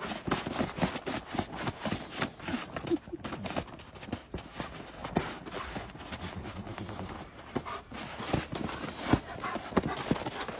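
Many irregular crunching footsteps on packed snow, including a dog high-stepping in snow boots.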